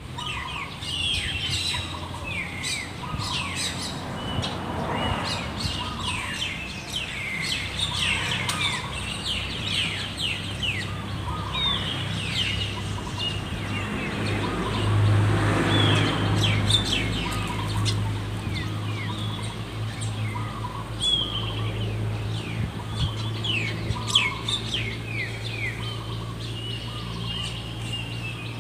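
Many birds chirping with quick, falling chirps that repeat all through, over a steady low hum that swells about halfway through.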